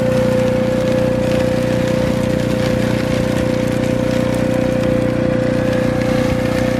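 Dry washer running: its blower and motor hum steadily with a strong, even whining tone, while dirt and gravel rattle and hiss down the shaking riffle tray.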